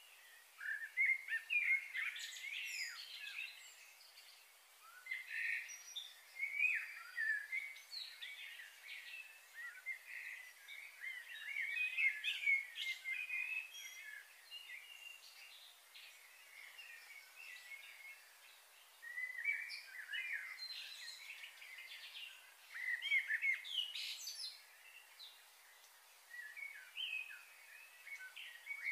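Small birds chirping and twittering in the trees, in bursts of quick, high chirps a few seconds long with quieter gaps between.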